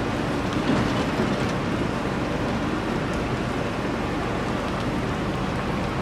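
The Big Chute Marine Railway's boat carriage rolling slowly on its rails, a steady, even rumble with no distinct knocks.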